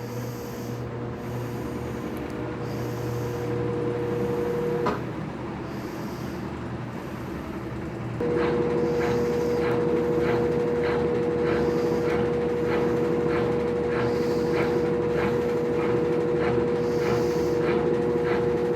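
Consul washing machine on its spin cycle with a double-bed-sheet load: the motor runs with a steady hum. About five seconds in it stops with a click. A few seconds later it starts again louder, with a fast, regular ticking.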